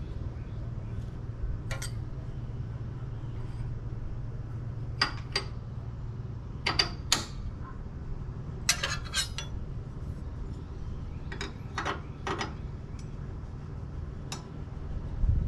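Steel dado blade and chippers clinking against each other and the table saw's arbor as they are fitted on by hand: about a dozen sharp metallic clinks, some in quick pairs, over a steady low hum.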